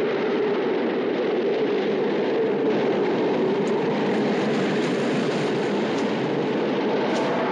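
Strong blizzard wind blowing steadily, a dense rushing noise with a low moaning tone in it.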